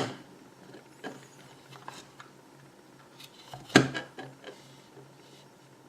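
3D-printed plastic transmission parts being handled and pressed together: faint rubs and light clicks, with one sharp plastic clack just under four seconds in.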